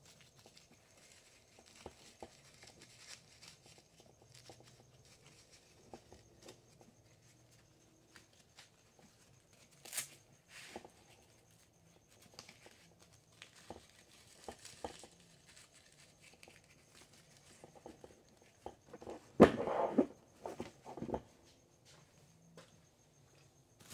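Nylon fabric and hook-and-loop straps of a T.REX ARMS AC1 plate-carrier back panel being handled: soft, scattered rustling with a sharp click about ten seconds in. A louder burst of tearing fabric noise comes a few seconds before the end.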